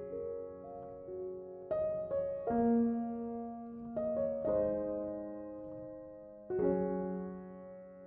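Slow background piano music, with held notes and chords changing every second or so.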